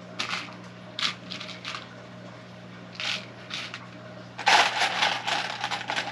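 Loose Lego Technic plastic pieces clicking and rattling in a small plastic dish as a hand sorts through them: a few light clicks at first, then a louder rattling stretch about four and a half seconds in, and again near the end.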